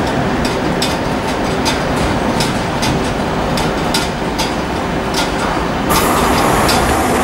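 TGV Duplex double-deck trainset rolling past, its wheels clicking over the rail joints in a steady rhythm of about two to three clicks a second over a steady rumble. About a second before the end, a louder rushing noise takes over.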